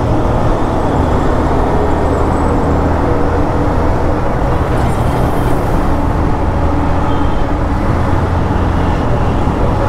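Hero Xtreme 125R's single-cylinder engine running steadily at cruising speed, with wind rushing past the rider.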